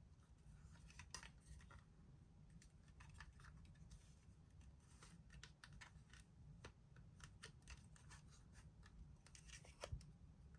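Faint, irregular light clicks and scrapes from small plastic toy pieces being handled and set in place, at a very low level.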